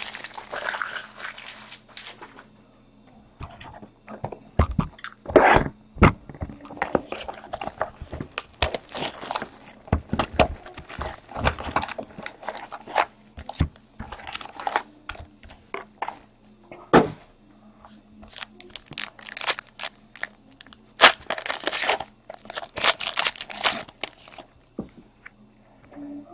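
Trading card packs being opened and handled: wrappers crinkling and tearing, and cards shuffled and set down on the desk mat, in irregular bursts of rustles and clicks.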